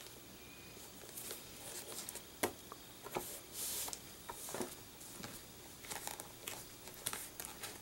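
Soft taps and clicks of hands working a MISTI stamping tool as its hinged lid, holding a rubber cling stamp, is closed and pressed down onto the paper. A sharper knock comes a couple of seconds in, and a short brushing rub of a hand across the lid follows soon after.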